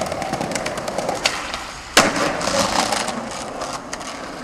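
Skateboard wheels rolling over rough pavement with small clicks, and one sharp clack of the board striking the ground about two seconds in.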